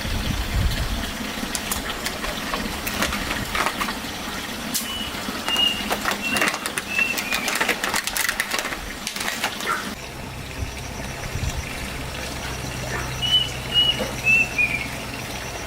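A bird calling twice, each call a short run of high notes falling in pitch. Scattered knocks and handling clatter come first, and from about ten seconds in a low steady hum sits underneath.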